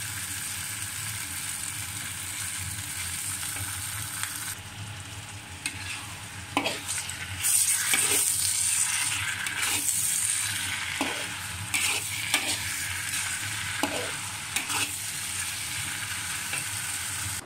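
Sauerkraut and rice cake slices stir-frying in a hot wok: a steady sizzle as the food is stirred and tossed, with a scrape against the wok every second or two and a louder stretch of sizzling just before the halfway point. The food is still cooking, not yet done.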